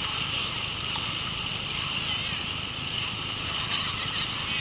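Steady rush of whitewater on the Kern River running around a raft, an even wash of water noise with no single splash standing out.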